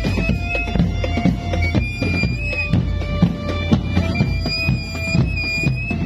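Marching drum band playing: a steady run of drum strokes with a wind instrument carrying a high, held melody over it that slides a little between notes.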